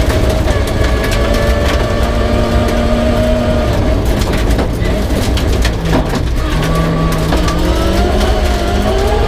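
Peugeot 306 rally car's engine on a special stage, held at steady revs, dropping away in the middle as the driver lifts off, then climbing steadily as it accelerates again near the end, with scattered knocks and clatter from the car.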